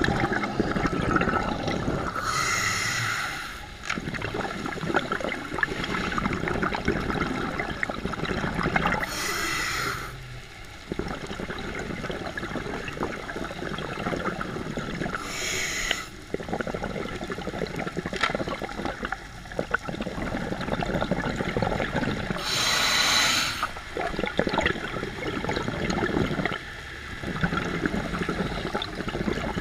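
Scuba diver breathing through a regulator underwater: four short hissing inhalations, about every six to seven seconds, each followed by a long bubbling gurgle of exhaled air.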